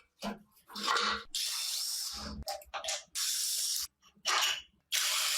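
Short bursts of spraying hiss, three of about a second each, starting and stopping sharply, with a few clinks and knocks between them.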